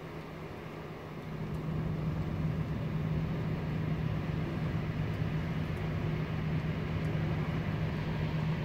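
Steady low drone of city background noise with a low humming tone running through it, growing louder about a second in and then holding even.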